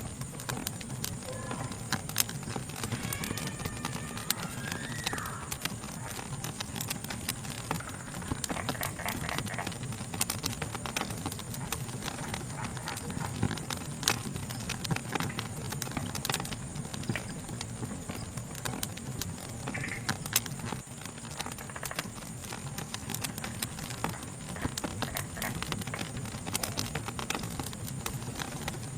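Wood fire crackling: irregular sharp pops and snaps over a low steady rumble of burning. A steady, high-pitched insect chorus runs behind it.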